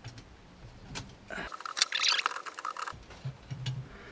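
Steel bicycle brake (Bowden) cable being fed by hand through a drilled hole in a metal plate: faint scrapes and small clicks, with a louder bout of metallic rattling and scraping about halfway through.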